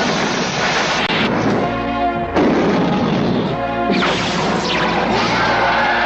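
Cartoon battle sound effects: three rushing, crashing blasts of a dragon's fire breath and magic bolts, each about a second long, with background music between and under them.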